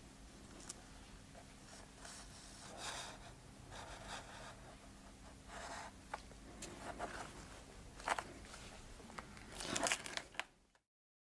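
Shoe repair bench work by hand: scattered rustling, scraping and light clicks over a faint steady hum, busiest near the end, then cutting off abruptly.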